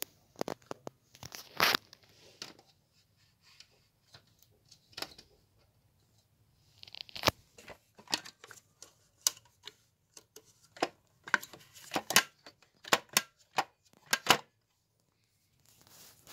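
Handling noise of juicer parts: irregular sharp clicks and taps with some rustling, in clusters, with a short swish about seven seconds in and quiet gaps between.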